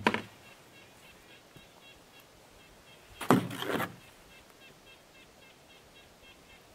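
A single scraping clunk lasting under a second, about three seconds in, as gear is handled in and against a canoe at the shore. Faint short high chirps, like a small bird calling, repeat throughout.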